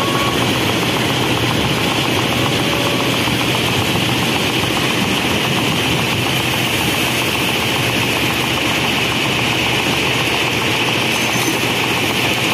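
Hyundai crawler excavator's diesel engine running steadily as the machine digs crushed stone and swings its loaded bucket over a dump truck, with a steady high-pitched hiss over the engine.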